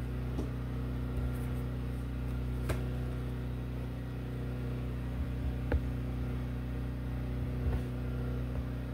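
Steady low electrical or mechanical hum of room background noise, with a few faint clicks scattered through it.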